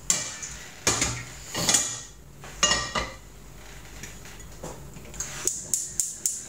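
A non-stick frying pan knocking against the stovetop a few times in the first three seconds, with a short metallic ring. About five seconds in, rapid even clicking starts, about four a second: a gas hob's spark igniter being lit.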